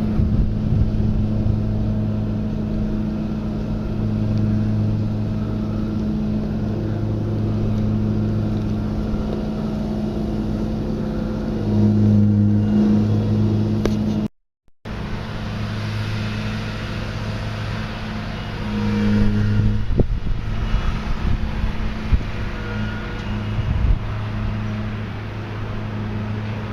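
A motor engine running steadily with a constant low hum, swelling a little now and then; the sound drops out briefly about halfway through.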